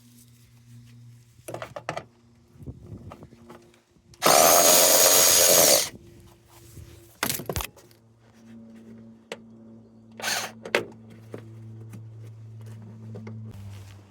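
A cordless power tool runs in one loud burst of nearly two seconds about four seconds in, undoing a 10 mm bolt, and gives a short second burst near ten seconds. Scattered clicks and clinks of tools being handled come around the bursts.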